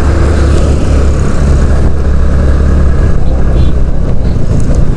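Motorcycle running at riding speed, heard on the rider's own microphone as a steady low rumble with rushing road and wind noise over it.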